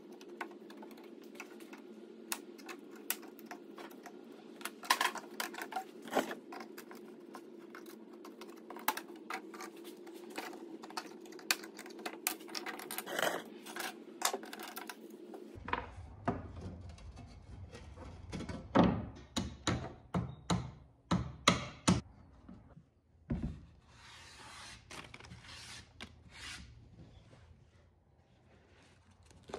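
Light clicks and taps of thin wooden trim strips and a small hand tool against a glass cabinet door, over a steady low hum. About halfway through the hum stops and louder wooden knocks follow, with a short scraping rub near the end.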